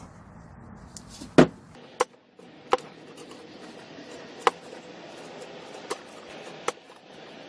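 A series of six sharp knocks at irregular intervals, each with a brief metallic ring. The first, about a second and a half in, is the loudest.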